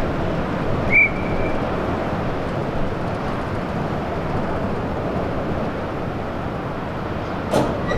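Steady rumbling wind noise buffeting the microphone, with a short high whistle blast about a second in and a sharp knock near the end.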